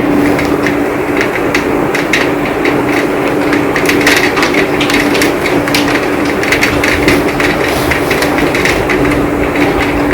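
Heavy rain falling steadily, a dense wash of noise with many sharp, irregular drop-hits close by. A faint steady hum runs underneath.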